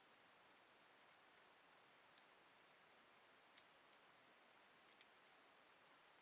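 Near silence with a few faint small clicks: the metal parts of a Zippo-style petrol lighter being handled and put back together.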